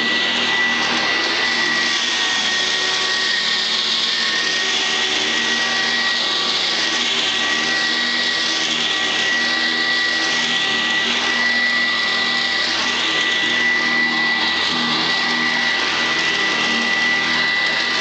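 Sanitaire SC886 commercial upright vacuum running steadily with a high motor whine, picking up cat litter from carpet. Its sound swells and falls about every second and a half with the push-and-pull strokes.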